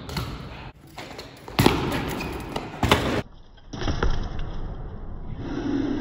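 BMX bike tyres rolling on a concrete floor, with several hard knocks of the bike hitting the ground.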